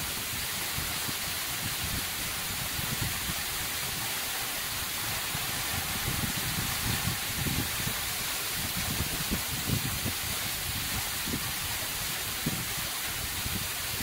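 Waterfall pouring down a sheer rock cliff and splashing into a pool, giving a steady hiss of falling water, with irregular low thumps from heavy drops striking close by.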